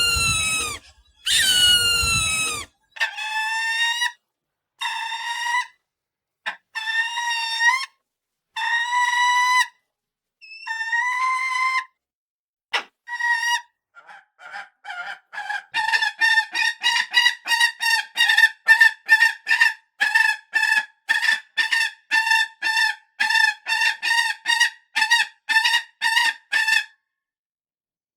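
Falcon calling: two falling screeches, then a string of separate drawn-out calls spaced about a second apart, then a fast run of short repeated calls, about three a second, through the second half.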